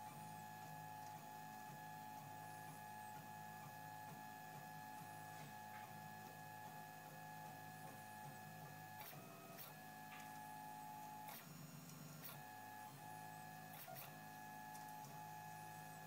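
MendelMax 3D printer running a print: its stepper motors give a faint, steady whine, broken by a few short clicks and pitch changes in the second half as the moves change.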